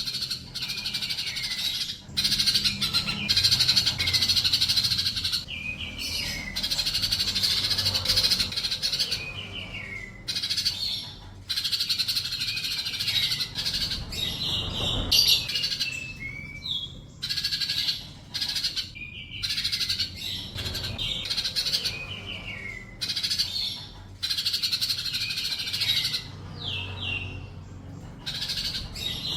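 A kolibri (sunbird) singing energetically, fast high chattering phrases with quick down-slurred notes, each phrase lasting a few seconds with short pauses between.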